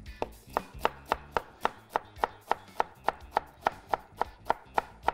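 Kitchen knife dicing a red bell pepper on a wooden cutting board: a steady, even knock of the blade striking the board about three to four times a second.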